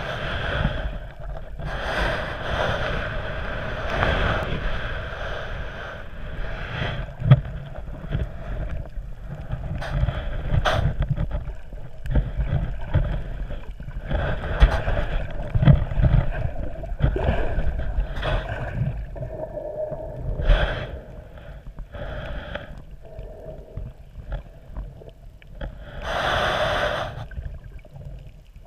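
Water gurgling and sloshing around an underwater camera, over a low rumble of moving water. Rushes of breath-like noise come every few seconds, the loudest near the end.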